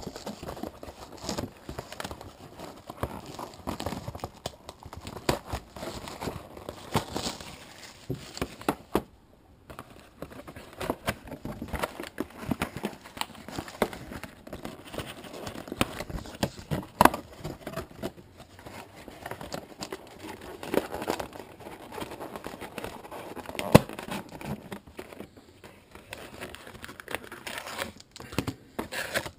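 Plastic wrapping on a sealed trading-card box crinkling and tearing as the box is unwrapped and opened. There are many irregular crackles and a few sharper snaps throughout.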